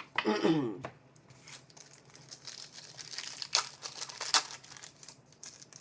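Wrapper of a hockey trading-card pack crinkling and tearing as it is handled and opened, an irregular crackle that runs on for several seconds after a brief vocal sound at the start.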